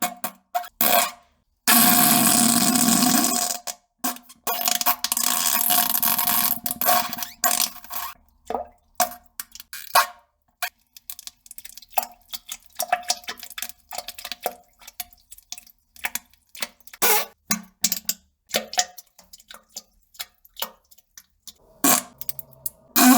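A string of short fart and poop sound effects edited together, each cut off abruptly into silence, some with a buzzing pitch and others noisy, with one longer, loud, noisy stretch from about two to four seconds in.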